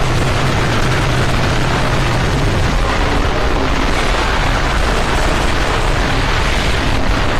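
Harsh digital noise music: a dense, unbroken wall of loud distorted noise. A low droning hum underneath drops away about three seconds in.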